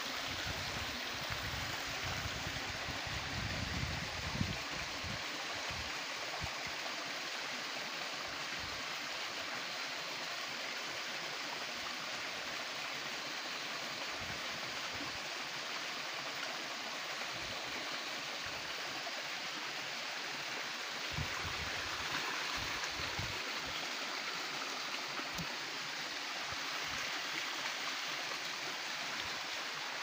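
Small stream splashing and rushing steadily down rock ledges in little cascades, with a few low thumps in the first seconds and again about two-thirds of the way through.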